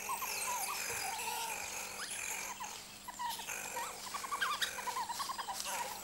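Banded mongooses giving many short, high chirps, scattered and overlapping, over a faint hiss: the contact calls a foraging group keeps up.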